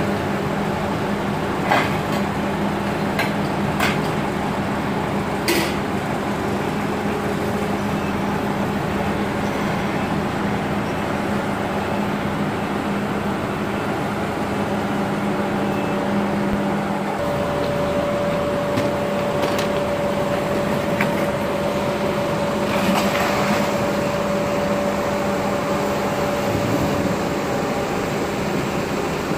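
Forklift engine running steadily while the forklift lifts and carries a heavy backhoe axle on its forks, with a few metallic knocks in the first few seconds. About two-thirds of the way through, the low steady hum gives way to a higher steady whine.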